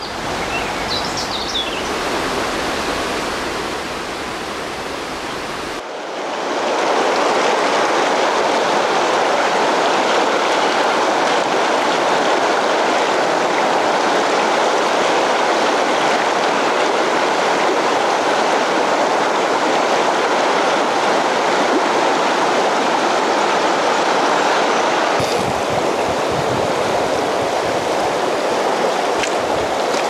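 River water rushing over shallow rapids, a steady loud rush that gets louder about six seconds in.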